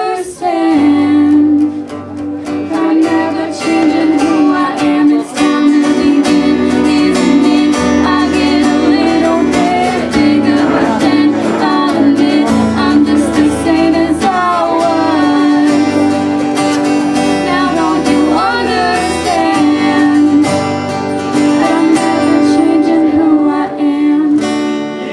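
Music: a song with singing over strummed guitar in a steady rhythm.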